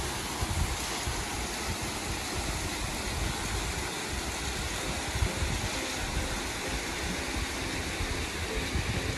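Steady rushing of a small waterfall cascading into a pool.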